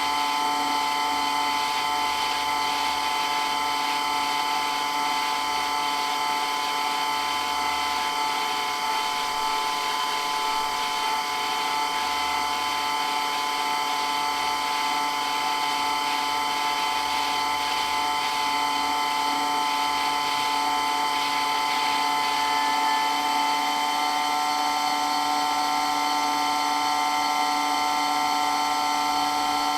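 Electric water pump running steadily with a constant high-pitched whine over a mechanical hum; its tone shifts slightly about two-thirds of the way through.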